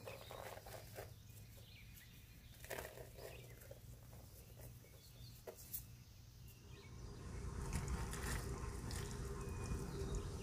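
Faint, sparse soft patter and rustle of shredded mozzarella dropped onto a tortilla. From about seven seconds in, a louder steady rustling noise with a low hum comes in.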